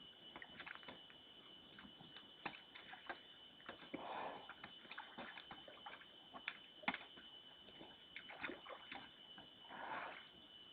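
A bear sloshing and splashing water as it works at a food hole, in irregular faint splashes and small clicks, with the two longest splashy swishes about four seconds in and near the end.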